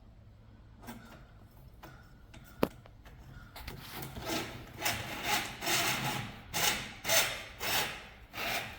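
Stihl string trimmer's steel drive cable being fed by hand down its shaft tube: a run of rasping, rubbing strokes, about two a second, through the second half, after a single sharp click about two and a half seconds in.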